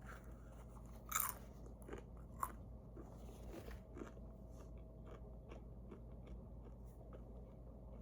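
A person biting into a crunchy spicy snack with one louder crunch about a second in, then chewing it in a run of small crunches and ticks.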